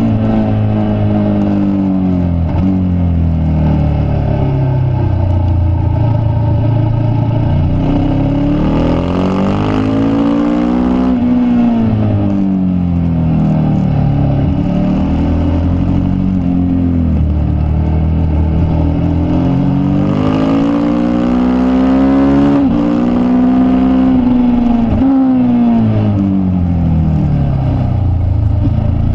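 Racing motorcycle engine heard from on board at full track speed: the pitch climbs steeply through the gears, dipping sharply at each upshift, then falls away as the bike slows for corners, over and over.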